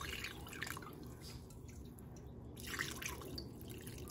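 Water poured in a stream into a large pot of birria chili broth, splashing and trickling unevenly, with a quieter lull midway.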